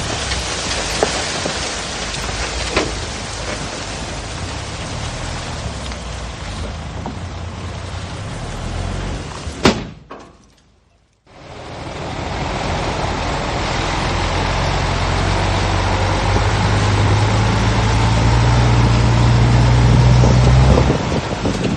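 Heavy diesel engine of earthmoving machinery running, with a sharp click about ten seconds in and a brief drop to near silence. The engine comes back and grows steadily louder, then eases off near the end.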